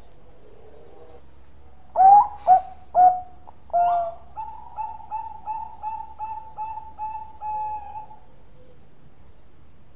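Bangkok-type zebra dove (perkutut) singing its cooing song: four loud swooping opening notes from about two seconds in, then a quick run of about eight short, evenly spaced coos that ends in a longer note near eight seconds.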